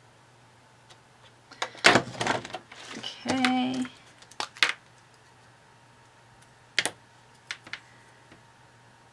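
Clicks and taps of small craft tools being handled and set down on a tabletop, the loudest cluster about two seconds in and single taps later. A short wordless hum comes in the middle.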